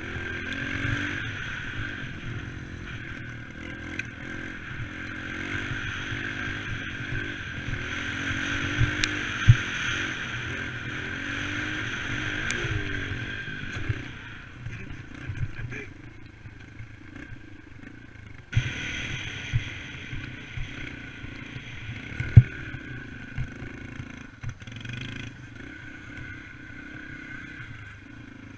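Dirt bike engine running under throttle, its pitch rising and falling as it is revved on and off, with clattering and a few sharp knocks from the bike over rough ground. It quietens about halfway, surges loud again for a few seconds, then settles lower.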